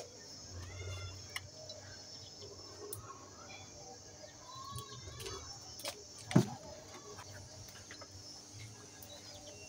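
Faint outdoor background with a few short chirps and one sharp knock about six and a half seconds in.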